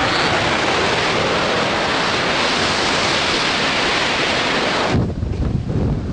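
Loud, steady freefall wind rushing over the camera microphone. It cuts off suddenly about five seconds in and gives way to lower, uneven sound.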